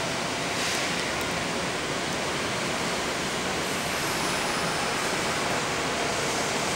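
Steady rush of air-conditioning and ventilation inside a stationary Kintetsu 1230 series commuter car, with a faint steady hum underneath.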